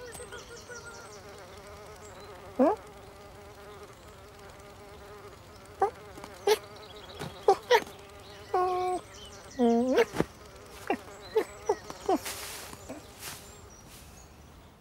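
Cartoon sound effect of a small fly buzzing steadily, with short, sharp chirps and squeaks breaking in a dozen or so times, some sliding up in pitch. The buzz fades away at the very end.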